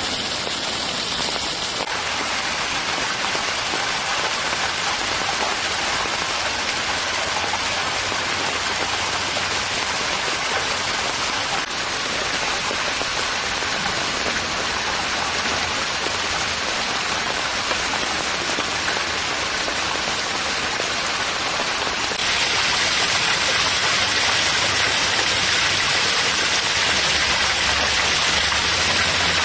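Running water splashing over rocks and leaves: a steady rushing hiss that changes abruptly at cuts and gets louder about three-quarters of the way in.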